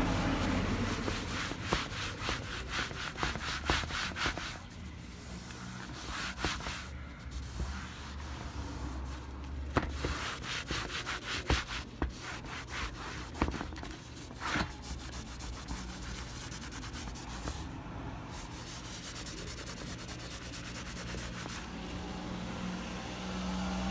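Paper towel rubbing and wiping over a car's door trim panel in rapid back-and-forth strokes, busiest in the first few seconds, with a few sharp clicks about halfway through.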